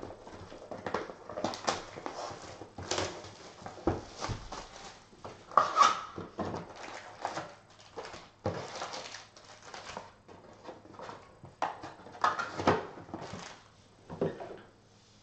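Cardboard hobby box being handled and foil-wrapped trading-card packs crinkling and rustling as they are pulled out and set down, in irregular bursts with sharp clicks.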